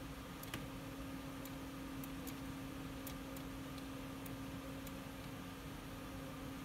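Room tone: a steady electrical hum with a few faint, scattered clicks.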